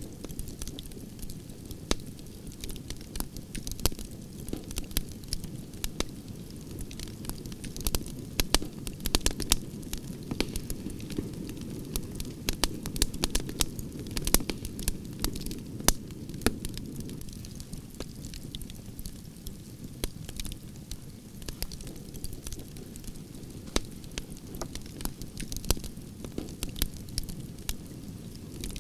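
Wood campfire burning with a steady low rumble and frequent irregular sharp crackles and pops, busiest in the middle.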